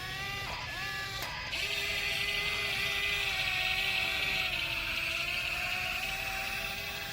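Whine of a small electric motor in a radio-controlled model vehicle, its pitch dipping and rising in the first second or so, then holding nearly steady with a slow sag as the throttle is held, over a steady hiss.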